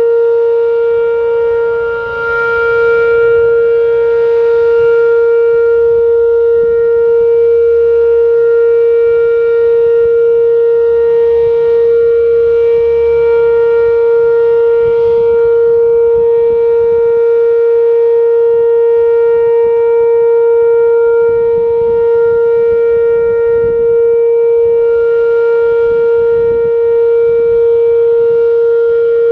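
Whelen WPS-2809 electronic outdoor warning siren sounding its Alert signal: one loud, unbroken steady tone with no rise or fall in pitch. A low rumble sits underneath.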